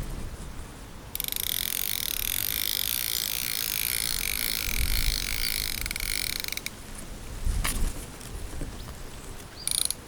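Fishing reel being wound in, a fast, even ratcheting click that starts abruptly about a second in and stops after some five seconds. A few handling knocks and clicks follow near the end.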